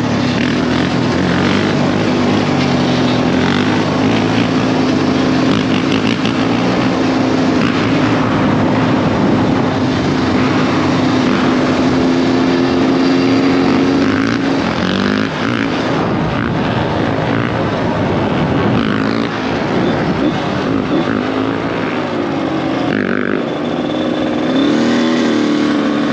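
Dirt bike engine running while riding, holding a steady note for about the first half, then shifting pitch. Heavy wind rush on the microphone lies over it.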